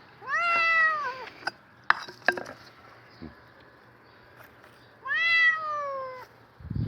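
A cat meowing twice, about five seconds apart; each meow is long and falls in pitch. The cat is trapped with its paw stuck in a concrete block. Two short sharp knocks come between the meows.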